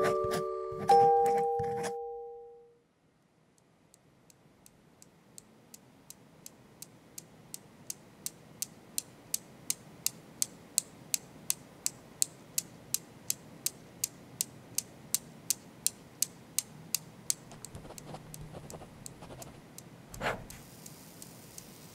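A few bell-like mallet notes ring out and die away, then after a short silence a clock ticks steadily at about two to three ticks a second, fading in and growing louder before it stops. A single short tap comes near the end.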